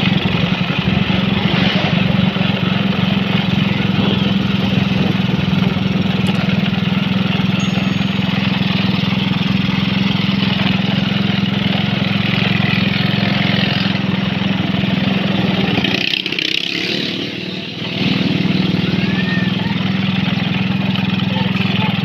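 Small motorcycle engine running steadily while riding along, with a short drop in sound about three quarters of the way through before it picks up again.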